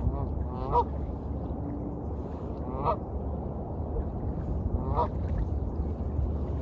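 A duck quacking in short, honking calls about two seconds apart, over a steady low wash of waves.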